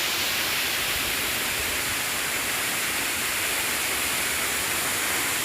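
Waterfall rushing close by: a steady, even roar of falling water with no breaks, strongest in the hiss of spray.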